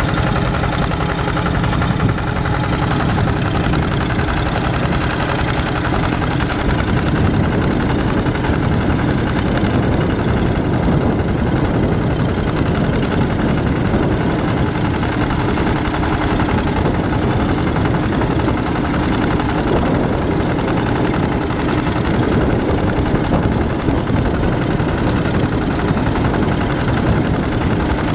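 Yanmar two-wheel walking tractor's single-cylinder diesel engine running steadily under load as it drives a rotary tiller through dry soil, with a rapid, even firing beat.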